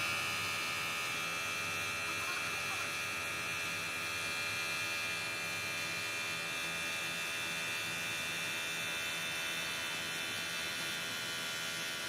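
An electric motor of a workshop machine running steadily, a continuous high-pitched whine over a low hum.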